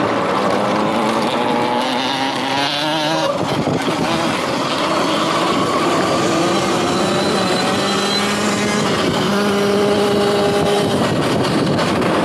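Sur-Ron Light Bee X electric dirt bike being ridden over a dirt track: steady rushing ride noise with pitched tones that rise, fall and wobble as speed changes.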